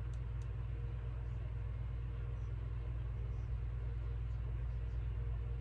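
Steady low hum with a faint hiss: background room noise, with no distinct sound from the eyeliner being applied.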